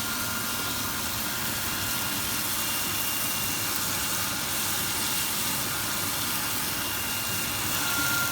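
Chicken steak frying in hot oil in a pan: a steady sizzling hiss, with a faint steady whine that grows a little stronger near the end.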